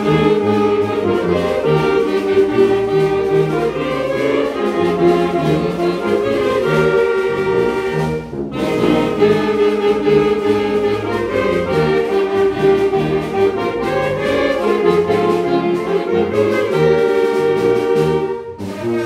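Oaxacan regional wind band playing, with clarinets and saxophones carrying sustained melody over trombone and a sousaphone bass line that repeats in short notes. The music breaks off briefly twice, about eight seconds in and near the end.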